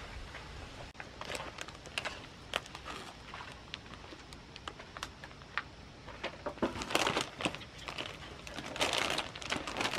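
A crinkly plastic snack-chip bag being handled and lifted by a small child, crackling on and off, loudest about seven seconds in and again near the end.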